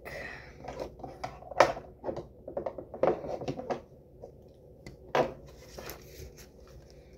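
Small skincare containers being picked up and set down on a desk, making scattered knocks and light clatter. The sharpest knock comes about a second and a half in, with others near three and five seconds.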